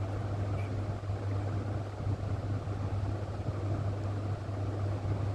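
A steady low hum under an even background hiss, with no distinct events.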